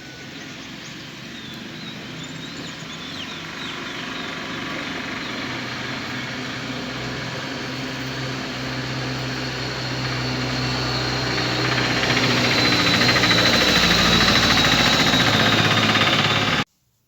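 A motor hum with a steady pitch that grows steadily louder and then cuts off suddenly near the end. A few faint bird chirps can be heard in the first few seconds.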